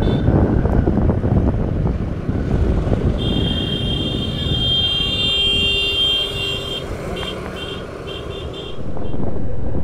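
Motorcycle riding through street traffic, with steady engine, road and wind rumble. About three seconds in, a vehicle horn sounds steadily for about four seconds, then in a quick string of short toots, about four a second.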